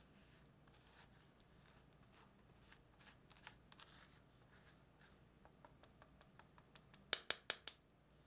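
Silicone spatula rubbing almond flour and powdered sugar through a fine stainless mesh sieve, a run of soft scraping strokes. Near the end come four quick sharp taps, the loudest sounds.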